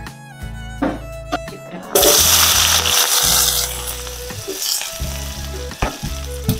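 Chopped onions and green chillies frying in hot oil in a wok. A loud sizzle starts suddenly about two seconds in and settles to a quieter, steady sizzle, over background music.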